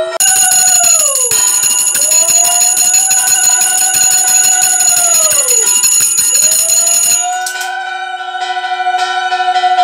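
Conch shell (shankh) blown in three long notes, each rising into a held tone and sliding down at its end. A hand bell rings continuously under it until about seven seconds in, then gives a few separate strokes.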